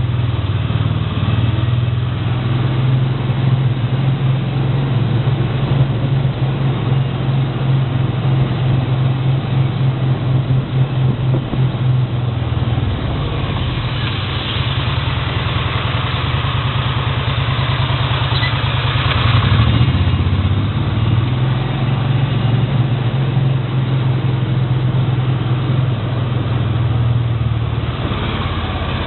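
An engine or motor running steadily with a low, pulsing hum. About halfway through the hum eases for several seconds while a hiss rises, then it returns.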